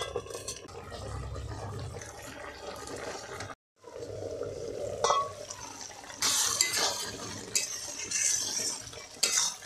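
A curry cooking in a covered wok, with a low steady bubbling. The sound cuts out briefly about three and a half seconds in. Later come a small metal clink, then scraping and clattering from stirring with a metal utensil in the pan.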